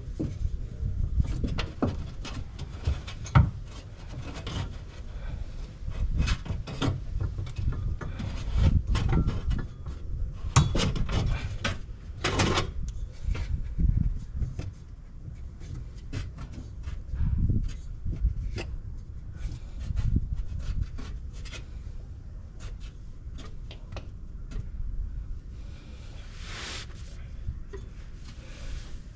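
Irregular clicks and knocks with rubbing and scraping, as of objects being handled.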